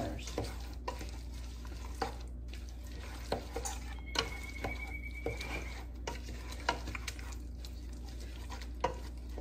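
A spoon stirring chopped cherries with lemon juice and pectin in a heavy-bottomed pot, with scattered light clinks and scrapes against the pot. A faint steady high tone sounds for about a second and a half, about four seconds in.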